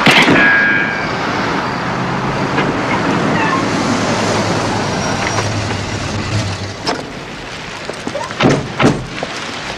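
Car tyres squeal briefly as a sedan comes in fast, then the car's engine and street traffic run on. Near the end come two loud, sharp bangs about half a second apart.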